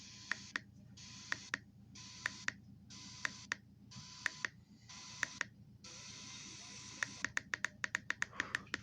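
Radio receiver hiss being stepped through stations. Sharp clicks come in pairs about once a second, and the hiss cuts out and returns between them. From about seven seconds in, a faster run of clicks follows, several a second.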